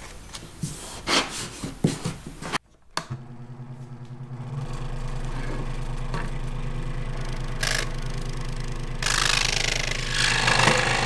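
A few handling knocks, then an electric scroll saw starting up and running with a steady hum and blade chatter. About nine seconds in, the blade starts cutting into a 3/4-inch wood board, adding a louder rasping sound.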